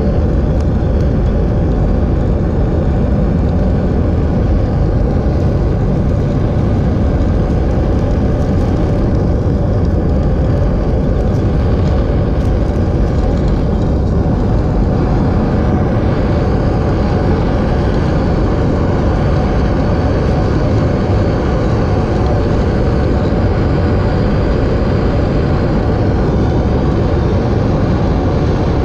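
Steady roar of a plumber's torch flame, held on a copper fitting while sweating a joint.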